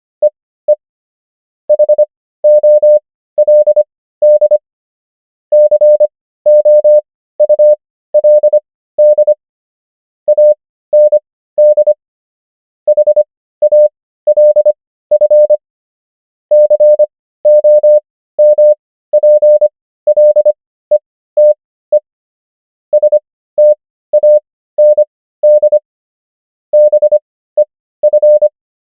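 Morse code (CW) practice tone: a single steady mid-pitched beep keyed on and off in quick dots and dashes, spelling common English words. Characters are sent at 25 wpm with Farnsworth spacing to an overall 15 wpm, so letters come fast with longer silent gaps between them and between words.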